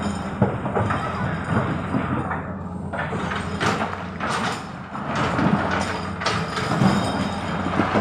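Tracked hydraulic excavator's diesel engine running steadily under load, with irregular clanks and knocks of rock against its steel bucket and the dump truck's bed as it digs and loads river rock.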